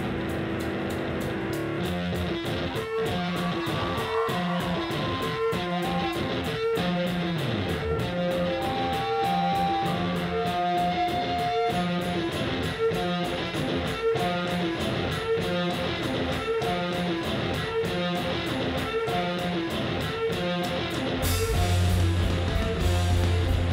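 Live math-rock band playing: an electric guitar picks a repeating clean riff of short notes, with a second guitar line above it. Near the end the full band comes in, louder, with deep bass and a bright hiss on top.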